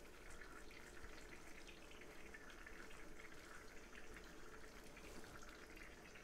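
Faint, steady trickle of water from a burst water pipe.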